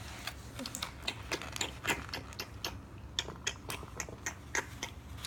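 Irregular small clicks and taps, several a second, of small plastic toy pieces being handled and set down, over a faint low hum.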